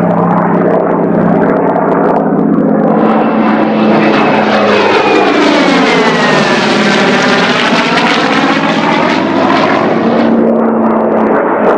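Grumman F8F Bearcat's Pratt & Whitney R-2800 radial engine and propeller in a fast flyby. The sound swells a few seconds in, its pitch drops as the plane passes, and it eases back near the end.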